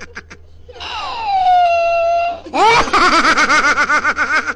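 High-pitched laughter: a long squeal that falls in pitch and holds for over a second, then a rapid run of 'ha-ha-ha' pulses from about halfway in.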